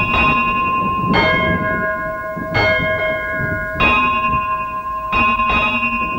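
A bell struck six times, about once every second and a quarter, each stroke ringing on into the next, with two strokes close together near the end.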